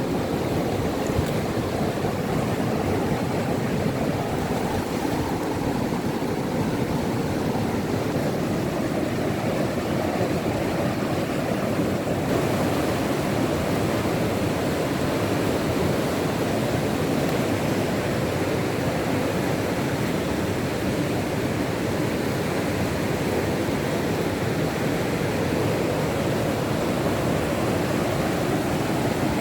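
River rapids: water rushing over rocks in a steady, unbroken rush.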